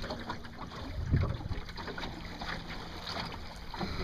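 Water splashing and lapping irregularly against a small sailboat's hull, with wind noise on the microphone.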